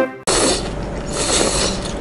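Background music cuts off just after the start, followed by close-miked eating sounds: rice noodles from a bowl of pho being slurped, a noisy slurp that swells about a second and a half in.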